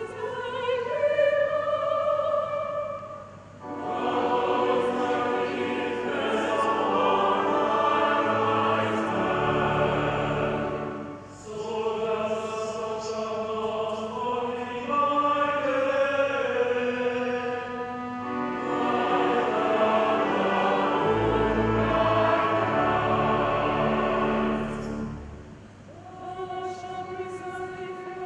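Church choir singing a hymn over low sustained accompaniment, in long phrases with short pauses between lines.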